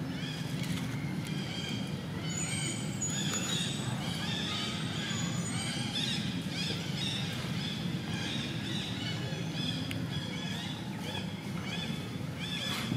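Small birds chirping over and over in quick short notes, with a few high thin whistles in the first few seconds, over a steady low hum.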